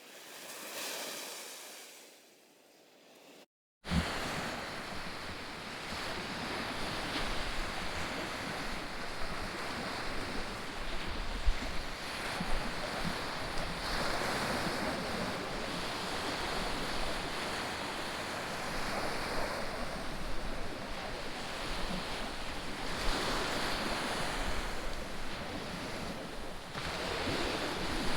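Sea surf washing onto a beach, a steady hiss of water that swells and eases every few seconds, with wind buffeting the microphone. The first few seconds are much quieter, and the surf comes in suddenly after a short dropout about four seconds in.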